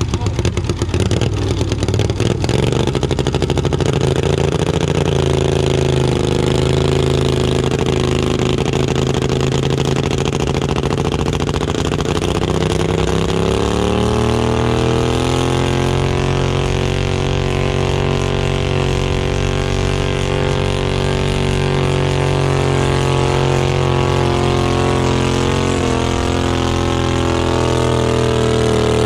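Modified garden pulling tractor's engine running hard under load as it drags a weighted stoneboat sled, rough for the first few seconds, then a steady drone whose pitch climbs about halfway through and holds high.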